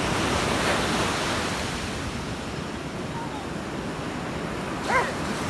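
Small sea waves breaking and washing up a beach, with wind buffeting the microphone; the surf swells in the first second and then eases. A brief high-pitched cry cuts in near the end.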